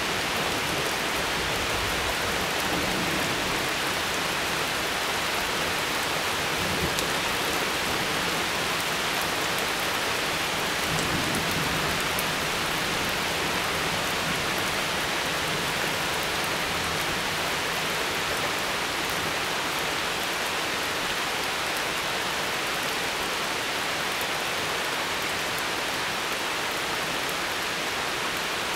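Steady, even rain falling and pattering on surfaces during a thunderstorm.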